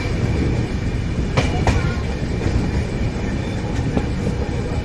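LTT Coimbatore Express passenger train rolling along the track: a steady low rumble, with two sharp clicks from the wheels about a second and a half in.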